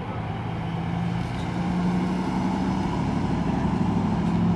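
A motor vehicle's engine running steadily as a low hum, growing a little louder about a second in.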